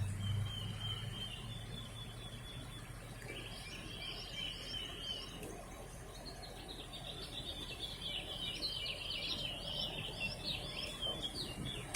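Birds chirping and calling in quick runs of short, repeated high notes. A low steady hum sits under them and fades out about two seconds in.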